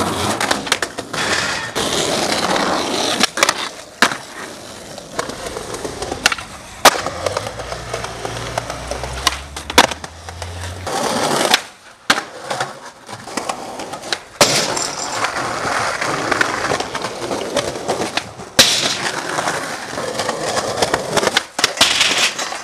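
Skateboard wheels rolling over rough pavement, broken several times by sharp clacks and slaps of the board hitting the ground.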